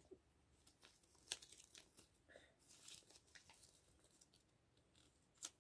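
Faint crinkling and rustling of paper as a gachapon capsule's folded paper insert is handled and unfolded, with scattered sharp crackles.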